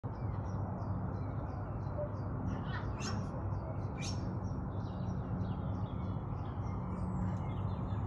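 Blue-throated macaws giving two short, harsh squawks about a second apart, around three and four seconds in. Behind them runs faint, rapid high chirping of small birds over a steady low rumble.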